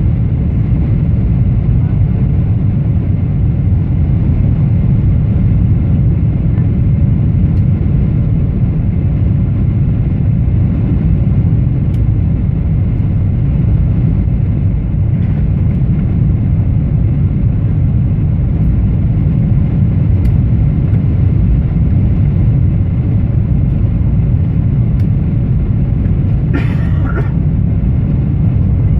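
Steady low rumble inside a Boeing 777-300ER cabin in flight: GE90-115B engine and airflow noise from a seat by the wing. A brief, sharper sound comes near the end.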